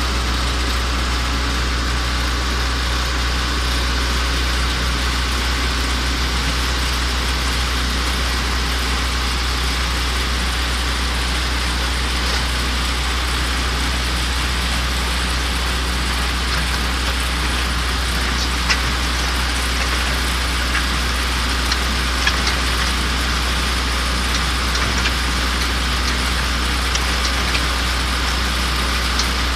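Diesel engine of a mobile concrete mixer pump running steadily, with a deep, even hum and a few light sharp clicks in the second half.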